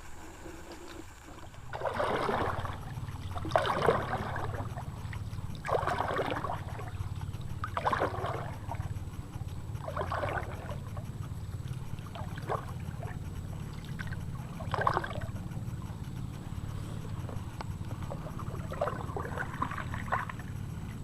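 Paddle strokes in river water, about one every two seconds with a short pause near the end, over a steady low hum.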